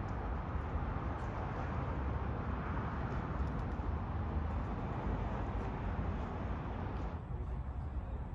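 Steady low rumble and noise of a train, with the higher hiss dropping away abruptly about seven seconds in.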